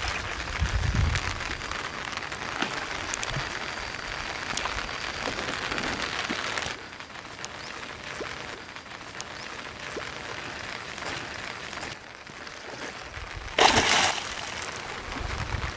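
A hooked black carp thrashing at the water's surface, a continuous spattering of splashes that grows quieter about seven seconds in, then one loud splash near the end.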